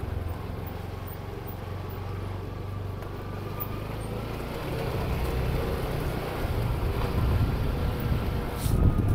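Motor vehicle's engine running steadily at low speed with some road noise, getting louder briefly near the end.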